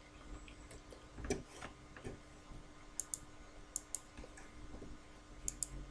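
Faint, irregular clicks, several of them in quick pairs, over quiet room tone with a low steady hum.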